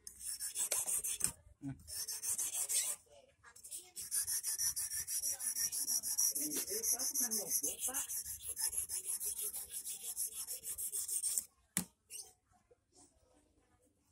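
Fast back-and-forth rasping strokes of a hand abrasive working the tip of a 2.5 mm stainless steel wire to shape an eel-hook point. The strokes pause briefly twice and stop about three seconds before the end, followed by a single click.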